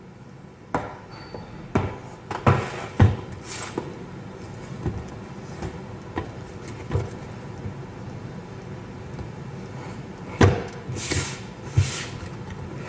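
A cardboard product box being handled and turned over on a wooden table: irregular knocks and taps as it is gripped and set down, with a few short brushing scrapes of cardboard. The loudest knocks come a few seconds in and again near the end.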